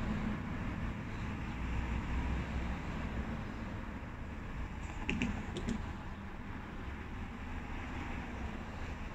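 Steady low vehicle rumble heard from inside a car cabin, with a few short, sharp clicks about five seconds in.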